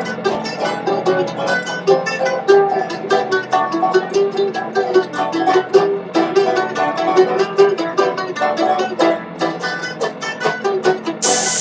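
Background music led by a quickly picked plucked string instrument, with a rapid run of short notes. Just before the end, a loud steady hiss cuts in.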